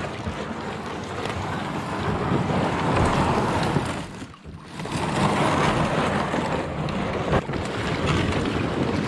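Plastic kayak hull dragged over gravel and rocks, heard close up through the hull from a camera mounted on the kayak: a loud, continuous scraping grind with a short break about four seconds in.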